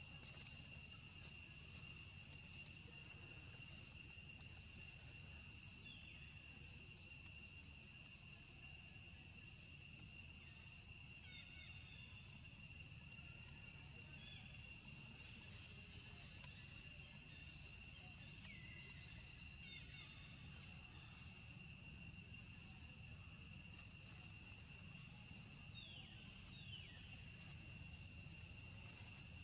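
Steady high-pitched insect drone holding one even pitch throughout, with a few faint short falling chirps around the middle and near the end.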